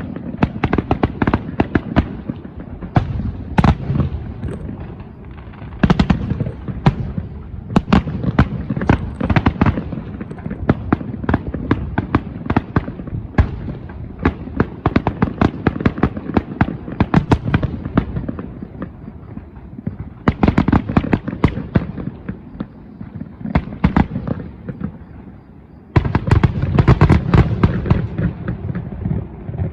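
Fireworks going off in a dense, continuous barrage of sharp bangs and crackles. The volley briefly thins out, then turns louder and denser about four-fifths of the way through.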